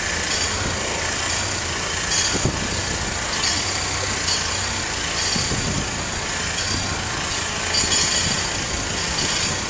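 Street traffic noise: a steady engine rumble, like a vehicle idling, with a hiss that swells briefly every second or two.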